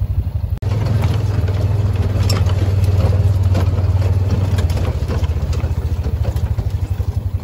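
Engine of a small ranch vehicle running steadily in a low, pulsing drone, with light rattles over it. The sound drops out for an instant about half a second in.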